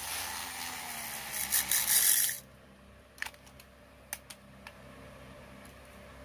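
Infinity Nado toy spinning top whirring in its pull-cord launcher, a noisy spin with a slowly falling pitch, cut off suddenly about two seconds in. Then a few light clicks of plastic launchers set down on a tile floor.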